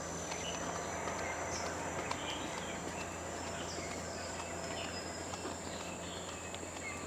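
Tropical forest insects droning steadily at a high pitch, with many short scattered chirps over a faint low hum.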